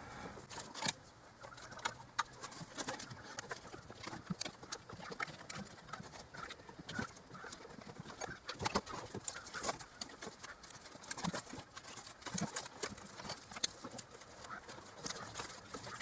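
Faint, irregular clicks and light taps of engine parts being handled and fitted by hand, with a slightly louder click about a second in and another around the middle.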